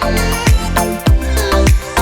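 Background dance music with a steady kick-drum beat, about two beats a second, over bass and melody.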